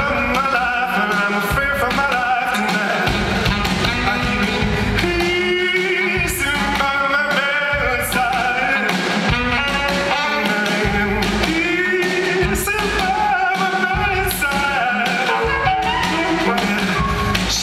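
Live band music: a singer's wavering voice carries the melody over piano, with a steady low beat underneath.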